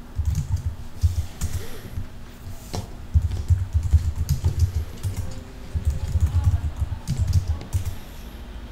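Typing on a computer keyboard: quick runs of keystrokes separated by short pauses.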